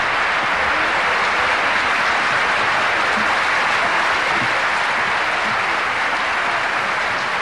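Audience applauding steadily: a dense wash of many hands clapping on the song's live recording.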